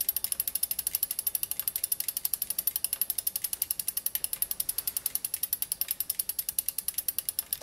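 Bicycle freehub ticking as the wheel spins freely: a fast, even run of sharp clicks, about twelve a second, that cuts off abruptly.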